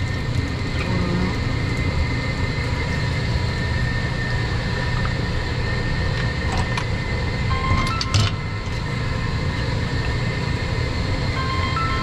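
Steady low drone of boiler-room machinery running, with a few steady tones above it. A few brief metallic clicks and knocks come about two-thirds of the way in.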